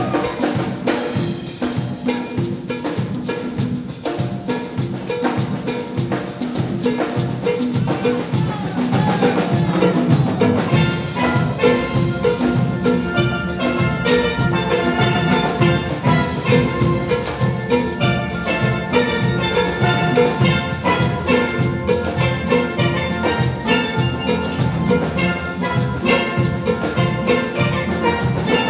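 Steel band playing: steelpans over a steady drum rhythm. About ten seconds in the pans come in louder with a fuller melody.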